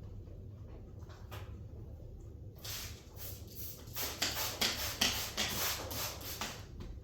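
A run of quick scraping strokes over wet window film, starting about two and a half seconds in and loudest in the second half, then stopping just before the end.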